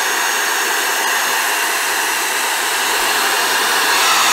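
Handheld hair dryer running steadily, its nozzle held against a laptop's fan vent to blow out dust.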